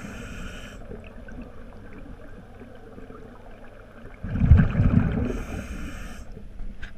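Underwater, along the hull: the ultrasonic antifouling transducer gives short buzzing pulses, one dying away in the first second and another of about a second near the end. Just before the second pulse, a short swirl of water noise rises about four seconds in.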